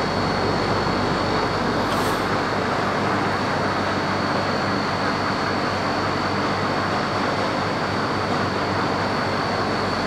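Steady rushing background noise with a faint high-pitched whine running through it; no speech.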